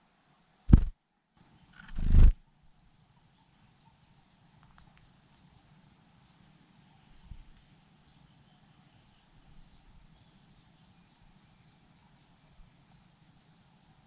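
Two short, loud low thumps about one and two seconds in, then faint insect chirring with rapid, even ticking.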